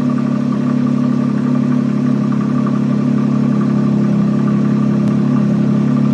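BMW car engine idling steadily at an even, low pitch.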